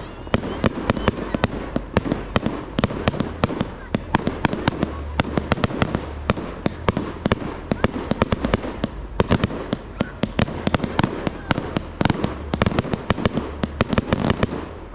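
Fireworks display: a rapid, continuous barrage of sharp bangs and crackles as small shells burst in quick succession.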